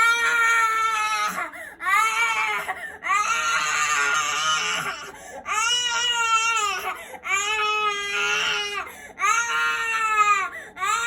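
Infant crying: a string of high-pitched wails, each a second or two long, with quick breaths between them.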